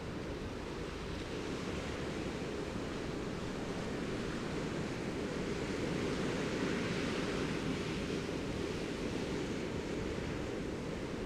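Steady rushing noise of wind and water, growing a little louder around the middle and easing off again.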